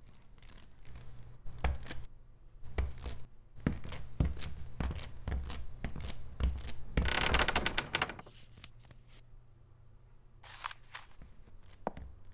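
Footsteps of hard-soled shoes on a wooden floor, about two steps a second, over a low steady hum. A brief burst of harsh scraping noise comes about seven seconds in.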